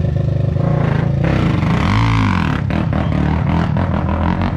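A mini bike's small engine running, revved up and back down about two seconds in, followed by light clattering.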